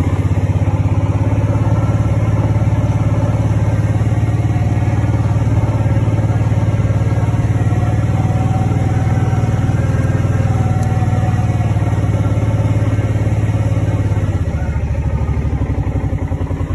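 Engine of a small farm vehicle running steadily as it drives along, easing off to a lower note about three-quarters of the way through.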